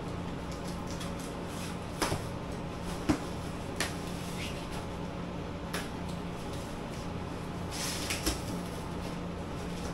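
Cardboard parcel boxes being handled and opened: a scatter of short knocks, taps and cardboard rustles, the sharpest about two and three seconds in, over a steady low hum.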